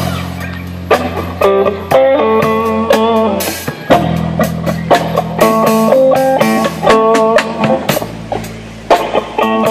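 Live band playing amplified electric guitar over a drum kit, the guitar picking out short, choppy lines between steady drum hits.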